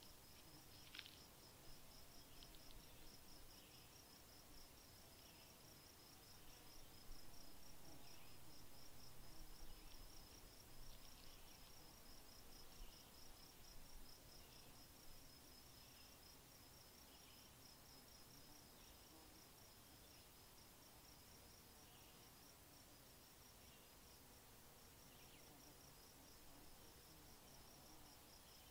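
Faint crickets chirping in a steady, even pulse, with a few soft, scattered higher calls.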